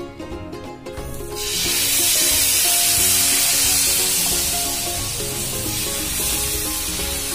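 Jowar-flour batter hitting a hot, oiled tava: it starts sizzling loudly about a second in, as the ladle pours it out, and keeps hissing steadily, with background music underneath.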